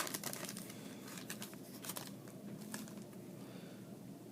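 Faint rustling and a few light clicks of trading cards being handled and flipped through.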